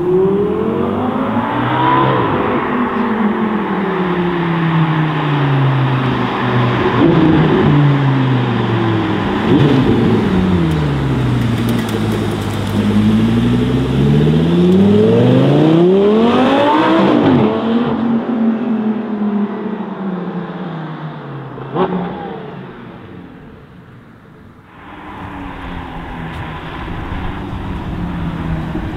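Lamborghini Gallardo LP570-4 Superleggera's 5.2-litre V10 revving hard through several accelerations, its pitch climbing and falling again and again. About three quarters through there is one sharp crack. The engine then fades away and returns as a lower, steady note near the end.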